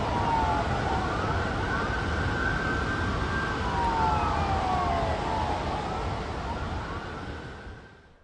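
Several sirens wailing, their pitches gliding and overlapping, over a steady low rumble like city traffic. The sound fades out near the end.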